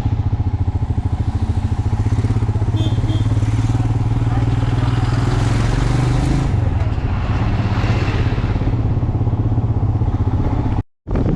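Motorcycle engine running under way with a steady low pulse; its pitch climbs slightly and then drops about six and a half seconds in. The sound cuts out for a moment near the end.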